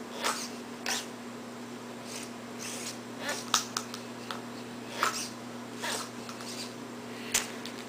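Hobby servos in a remote-controlled robot arm's wrist and gripper whirring in about ten short bursts as the arm is moved by remote, over a steady low hum.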